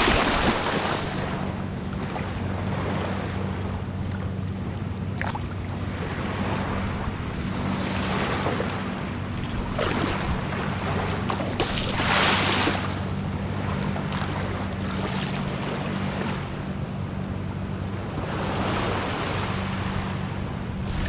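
Small waves washing up onto a sand beach in repeated surges, with wind buffeting the microphone. A steady low hum runs underneath.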